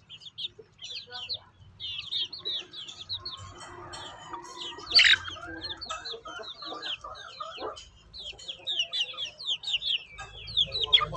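Young chickens peeping in a steady run of short, high, falling chirps, with some low clucking, while they peck at rice on the ground. One louder, sharp call stands out about five seconds in.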